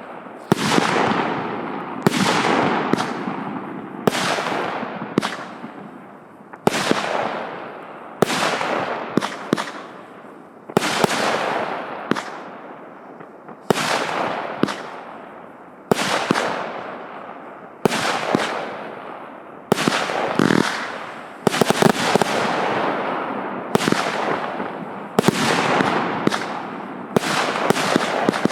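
A 100-shot, 0.8-inch consumer fireworks cake firing. A sharp bang comes about every second and a half, and after each one a crackle fades away over a second or so.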